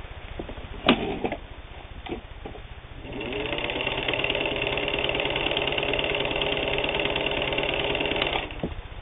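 Singer 15-91 sewing machine, driven by its built-in potted motor through a worm gear, spinning up and stitching steadily through cotton sheeting for about five seconds, then stopping abruptly. A sharp click and a smaller one come before it starts.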